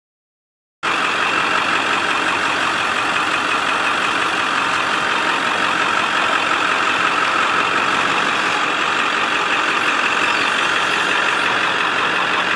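Silence for about the first second, then a pickup truck's engine idling steadily, with no change in speed.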